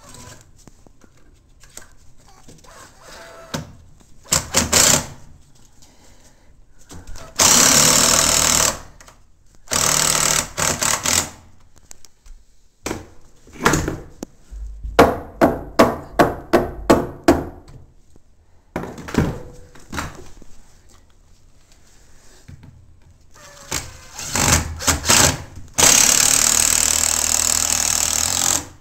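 Several bursts of a power tool working on new wooden floor supports, lasting from one to three seconds each. In the middle comes a run of about eight quick, sharp knocks, with scattered thumps of lumber being handled.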